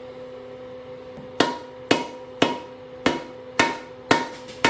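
Hammer blows on a metal driver, driving the piston seal down into a power steering rack housing: seven sharp, ringing metal strikes about two a second, starting after a quiet first second and a half.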